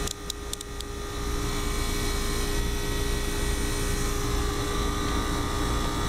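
R-22 air-conditioning condensing unit running, a steady drone of compressor and condenser fan with a few steady tones over a low rumble. A few light clicks in the first second.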